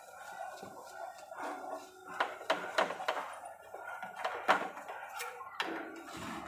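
A metal spatula scraping and tapping on an iron pan as a gram-flour pancake cooks: a string of sharp clicks and scrapes, the loudest a little over two seconds in and again about four and a half seconds in.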